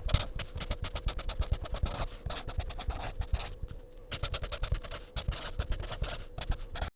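Rapid, irregular scratchy strokes of scrubbing on the plane's cast-iron base, in runs broken by short pauses, with a faint steady hum underneath.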